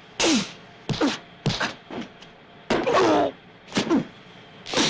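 A rapid series of fight-scene punch sound effects: about seven whacks and thuds, several with a brief downward-sliding tone after the hit.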